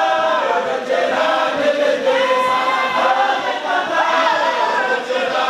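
A large group of men chanting a devotional song together, many voices in unison, with some notes held long.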